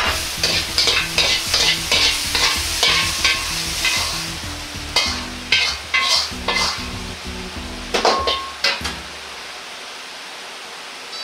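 Steel ladle scraping and clanking in a Chinese wok in quick strokes while bean sprouts and vegetables sizzle in the hot oil. A few more clanks and scrapes come between about five and nine seconds in, then it stops.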